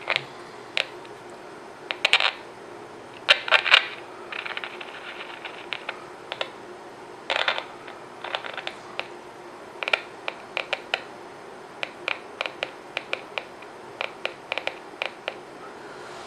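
Irregular sharp clicks, pops and crackles, some in quick clusters with a short burst of fine crackling, from an AM transistor radio being probed on its circuit board while it plays, over a faint steady hum. This is the sort of crackle an intermittent connection gives, and the repairer suspects a bad solder joint.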